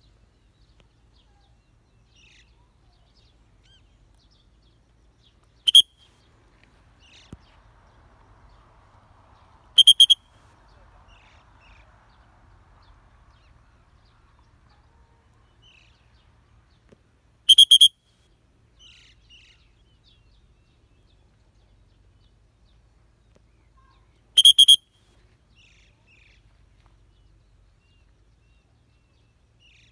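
Four loud, shrill whistle blasts several seconds apart, the last three each a quick double blast, with faint bird chirps in between.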